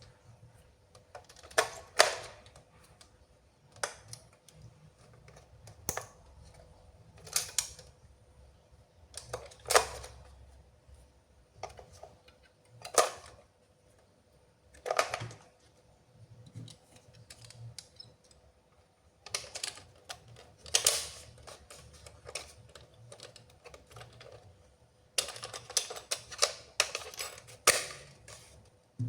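Toy packaging and toy parts being handled and unboxed: irregular rustles and clicks, one every second or two, with a quick run of clicks near the end.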